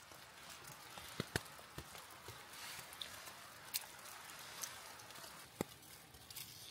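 A few faint, sharp clicks and taps from handling eating utensils and food, the loudest about a second and a half in, over a soft steady hiss.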